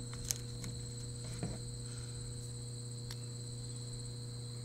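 A few faint clicks and taps as a quick-release bar clamp and a metal spreader bar are handled against a sling chair frame, over a steady low hum and a thin high whine.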